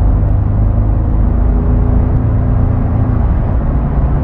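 Chevrolet Colorado pickup driving, with steady engine and road noise.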